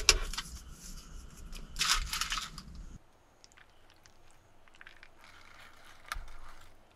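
Baking-paper lining crinkling and rustling around a dish of noodles for the first couple of seconds, then scattered soft clicks of wooden chopsticks picking through noodles and meat.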